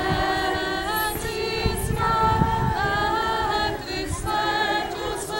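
A group of voices singing a hayivka, a Ukrainian Easter spring ritual song, unaccompanied, in held phrases with brief breaks between them.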